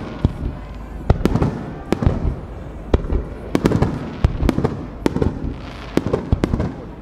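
Aerial firework shells bursting in quick succession: about a dozen sharp bangs at irregular intervals, each trailing off into an echoing rumble.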